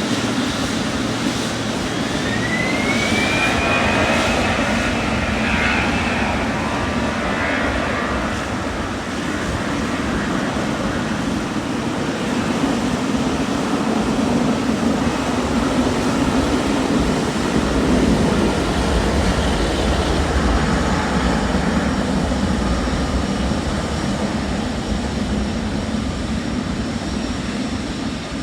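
Jet airliner engines running: a steady rumble, with a whine that rises about two seconds in, holds for a few seconds, then fades.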